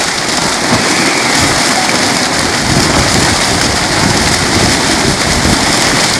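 Dense, steady splashing of a mass of farmed fish thrashing and leaping at the water's surface, crowded inside a seine net as it is hauled in.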